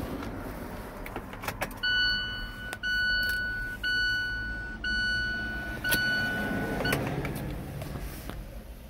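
Dashboard warning chime of a Kia Bongo 3 truck: five steady beeps in a row, each about a second long, with a few sharp clicks around them. The beeping stops abruptly near the end.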